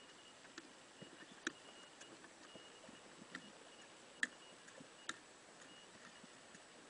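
Faint underwater ambience with a few sharp, irregular clicks, the loudest about four seconds in, over a faint high tone that comes and goes.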